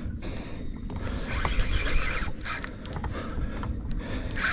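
Van Staal 50-size spinning reel being cranked, its gears and rotor whirring in uneven bursts as it winds in line. The reel is working under the heavy load of a big barracuda.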